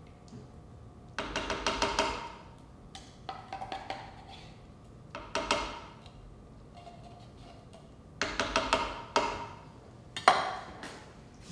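A utensil scraping and knocking inside a tin can as condensed cream of chicken soup is emptied out, in about six short bursts of quick clinks, the sharpest knock near the end.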